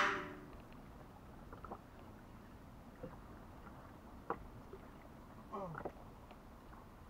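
Quiet ambience aboard a small fishing boat: a few faint light knocks, and a brief voice-like pitched sound about five and a half seconds in.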